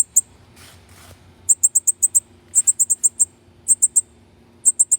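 Young northern cardinal giving quick runs of high, sharp chips, four to six notes at a time, several runs in a row: a hand-raised fledgling begging to be fed.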